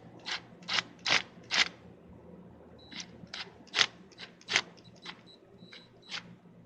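A string of about a dozen sharp, uneven clicks and clacks with short pauses between them: metal and plastic parts and tools being handled while a diverter/blow-off valve is fitted in a car's engine bay.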